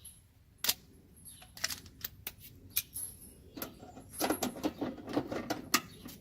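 A run of sharp clicks and light clatter from small hard parts being handled, busiest in the second half.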